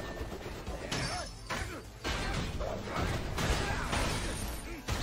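Anime battle sound effects, crashes and hits with swooshes, mixed with background music.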